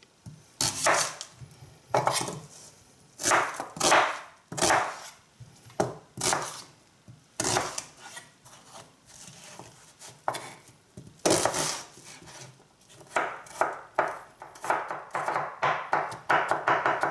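Knife cutting an onion on a plastic cutting board: separate slicing strokes through the onion and onto the board, quickening into a fast run of chopping near the end.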